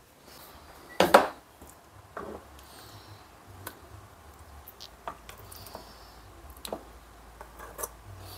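Metal spoon scraping and knocking against a pan and a plastic bowl as thick polenta is spooned out, in scattered short strokes. A sharper knock about a second in is the loudest sound.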